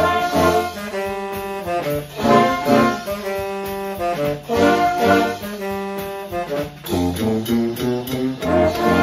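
School wind band playing together: flutes, clarinets, saxophones, trumpet, trombone and horn, over a drum kit keeping a beat. Many short notes over regular drum strikes.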